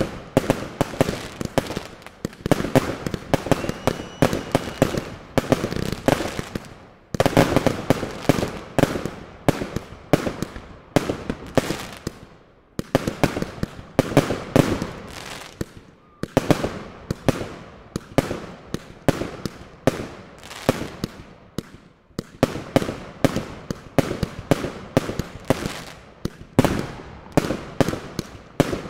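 Svea Fireworks aerial fireworks going off in rapid volleys: a dense string of sharp bangs and cracks from bursting shells. There are brief lulls a few times between volleys.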